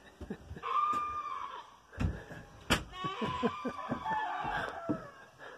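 Goats screaming at feeding time: a short call about a second in, then a longer wavering call from about three seconds in to just past five. A couple of thumps come in between.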